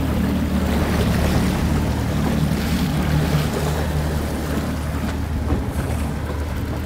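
Suzuki outboard motor running steadily under way, its low even drone mixed with the rush of wake water and wind buffeting the microphone.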